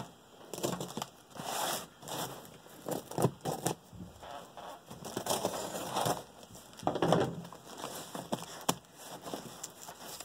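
A folding knife slicing through packing tape on a cardboard box, with the tape tearing and the cardboard crinkling in irregular strokes. Near the end the box flaps are pulled open.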